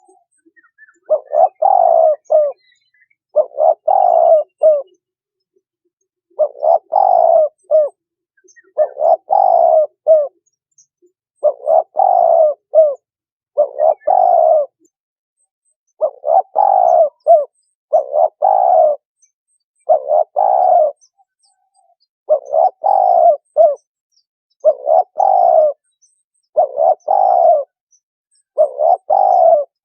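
Spotted dove cooing: the same short phrase of low coos repeated about every two seconds, with a few brief pauses between phrases.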